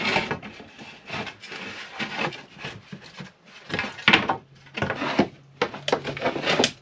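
Timber frame strips being handled and pushed into place, wood scraping and knocking irregularly, with a sharper knock about four seconds in.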